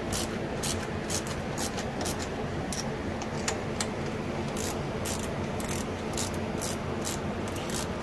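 Hand ratchet tightening carburetor mounting bolts into a plastic intake, its pawl rasping in short strokes about twice a second as it is swung back and forth.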